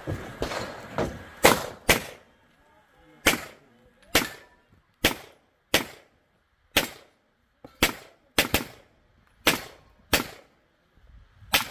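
Handgun firing a string of about a dozen shots at an uneven pace: single shots and quick pairs, mostly a second or less apart, each a sharp crack with a short ring-out, as the shooter moves from target to target.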